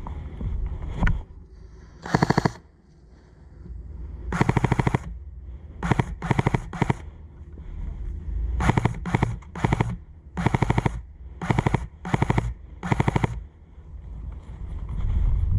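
Airsoft electric gun firing on full auto in short bursts: about a dozen quick strings of rapid shots, a few fired close together in clusters.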